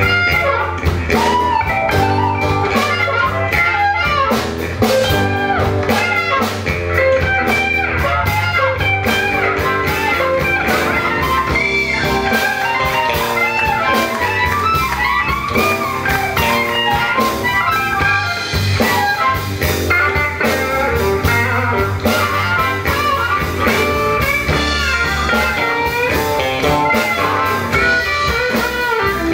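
Live blues band playing: electric guitar, harmonica, acoustic guitar, bass and drums, with lead lines bending in pitch over a steady bass and drum groove.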